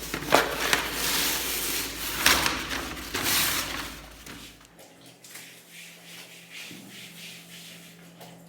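Old wallpaper being torn and peeled off a wall: rough ripping and rustling with a few sharp louder rips in the first half, then after a cut a much quieter stretch of faint scraping.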